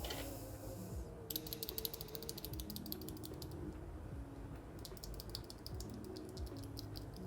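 A Cherry MX Silent switch in a mechanical keyboard being pressed rapidly: two quick runs of faint, muted clicks, each about a second and a half long, with a pause between them.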